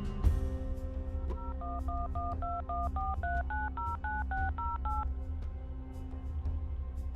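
Touch-tone telephone dialing: a quick run of about fourteen keypad tones, each two pitches sounded together, roughly four a second, over a low, steady music bed.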